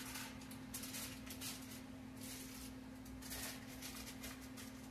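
Aluminum foil crinkling faintly in short, irregular rustles as it is folded around a large potato, over a faint steady hum.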